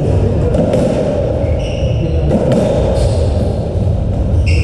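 Racketball rally on a squash court: the ball cracking off racket strings and walls several times, with two short high squeaks of shoes on the court floor, over a steady low rumble of the hall.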